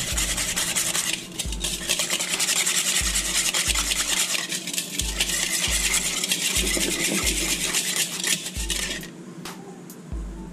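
A wire whisk beating a creamy dressing in a plastic mixing bowl: a fast, steady scraping and rattling that stops about nine seconds in. A steady bass beat of background music runs underneath.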